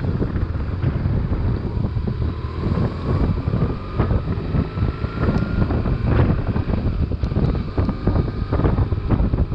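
Wind buffeting the microphone over the low running of a BMW R1150RT's flat-twin boxer engine under way. A faint whine rises slowly in pitch for a few seconds from about two seconds in.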